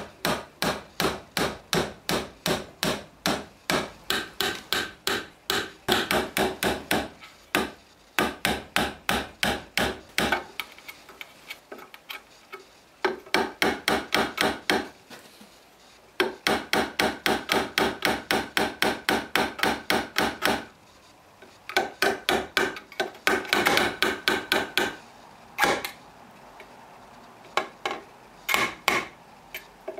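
Claw hammer driving nails into a pine board clamped in a vise: quick runs of about three to four blows a second, with short pauses between nails and fewer, lighter taps near the end.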